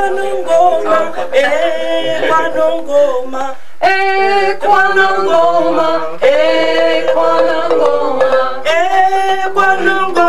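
A woman singing a song without instruments, in short phrases with brief breaks between them.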